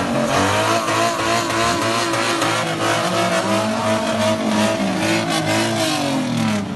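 Toyota 2JZ 3.0-litre straight-six in a Datsun drift car, revved as the car rolls slowly by, with a rapid rattle of clicks under the engine note. The revs climb over the first couple of seconds, hold, then drop away near the end.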